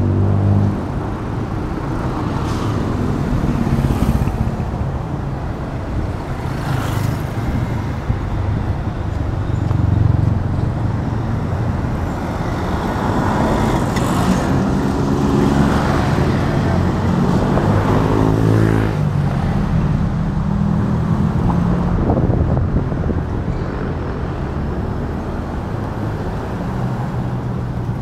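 Road traffic passing close by: a steady rumble of vehicle engines and tyre noise, with engines rising in pitch as they accelerate a few times around the middle.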